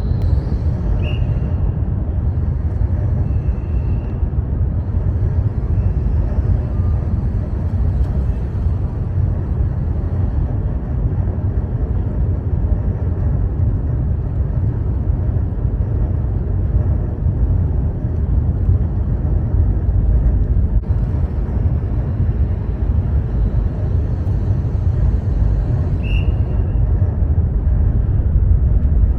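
Steady low rumble and rushing noise of a car ferry under way, with a few brief high chirps about one, three and a half, six and twenty-six seconds in.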